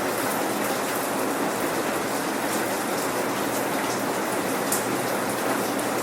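Steady rain falling, with the pattering of individual drops on a surface, without thunder.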